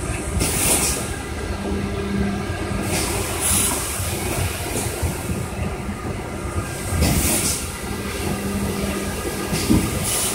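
Thermoforming machine running: a steady mechanical rumble, with a short hiss about every three seconds as it cycles and a low hum that comes and goes.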